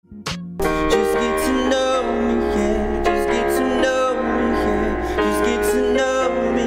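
A man singing a slow R&B song while accompanying himself on a digital piano keyboard; the music starts about half a second in and holds steady.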